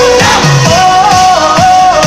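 Loud pop dance music with a steady beat, about two drum strokes a second, under a held melody line.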